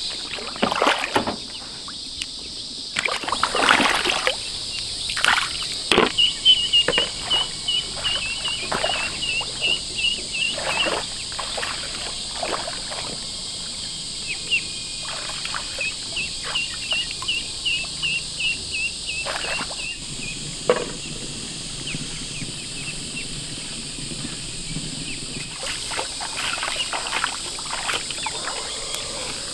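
Feet wading through shallow water, with irregular splashes and sloshing that are busiest in the first half. A steady high insect drone runs underneath, and twice in the middle a quick run of chirps sounds for a few seconds.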